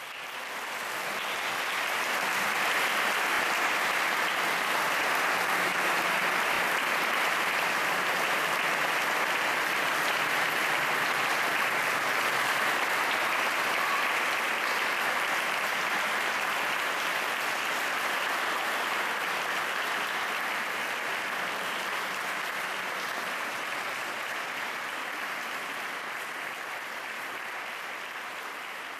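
Audience applauding steadily, building up over the first couple of seconds and slowly easing off toward the end.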